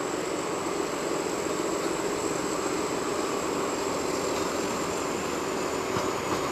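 Alsthom diesel locomotive running steadily as it shoves a train of coaches slowly uphill toward the listener, a continuous even drone with a steady hum.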